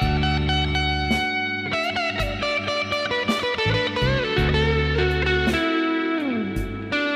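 Background music: an electric guitar lead playing held notes with bends over a bass line, with one note sliding down about six seconds in.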